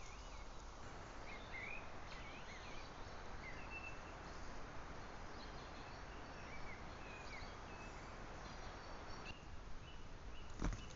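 Wild birds chirping and whistling in short scattered calls over a steady hiss from the trail camera's microphone. A single sharp knock comes near the end.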